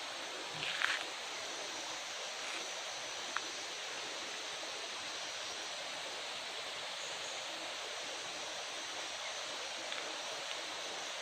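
Steady rushing noise of running water, with a brief louder sound about a second in and a single short click a little after three seconds.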